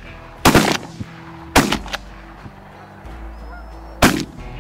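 Three shotgun shots: one about half a second in, a second about a second later, and a third near the end, each a sharp report with a brief tail.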